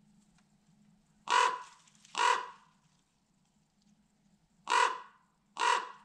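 A crow cawing: four short caws in two pairs, the second pair about three seconds after the first.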